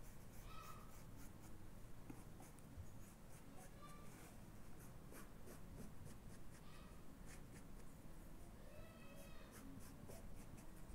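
Tailor's chalk scratching across fabric in repeated short strokes, faint, as a curved cutting line is drawn.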